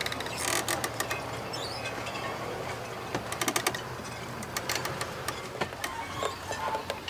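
Small clicks and scraping from a wooden stick spreading two-part epoxy over a leak in a plastic water jerry can, and from the can being handled, over a steady low hum.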